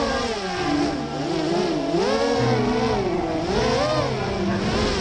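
FPV racing quadcopter's brushless motors and two-blade props whining, the pitch swooping up and down about once a second as the throttle changes through hard turns.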